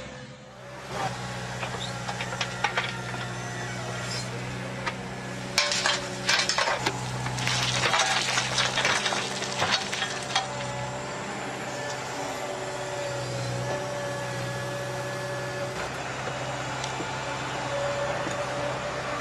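Excavator engine running steadily, with a flurry of metallic clanks and scrapes in the middle.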